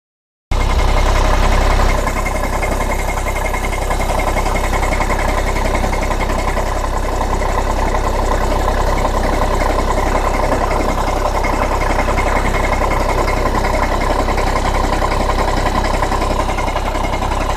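Skoda Octavia turbodiesel (TDI) engine idling cold with a knocking rattle from a failed dual-mass flywheel. It starts about half a second in with a heavier low rumble for the first second or so, then settles to a steady idle.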